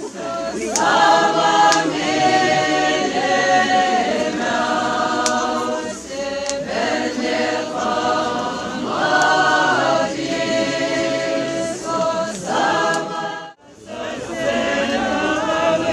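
A group of voices singing together unaccompanied, mostly in long held notes. The singing breaks off abruptly near the end and then starts again.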